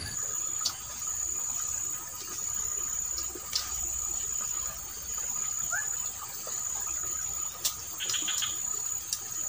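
Insects trilling: a high, steady trill that pulses on and off about once a second, each pulse just under a second long, over a fainter, lower steady tone. A few sharp clicks stand out from it.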